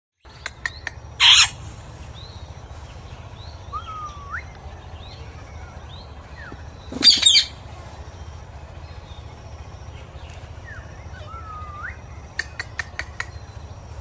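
Rose-ringed parakeets (Indian ringneck parrots) calling: two loud, harsh screeches, one about a second in and one about seven seconds in, with short rising chirps scattered between. Short runs of sharp clicks come near the start and again near the end.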